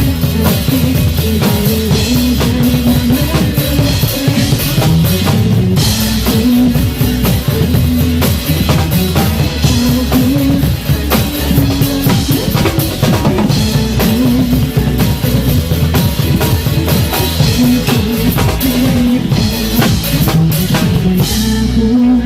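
Drum kit played fast and hard, with dense kick, snare and cymbal hits over recorded music that carries a steady bass line.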